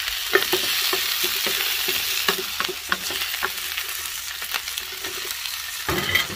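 Chicken feet and innards sizzling in oil in a large nonstick wok, with a spatula scraping and clacking against the pan as they are stir-fried. The strokes are irregular, and there is one louder knock near the end.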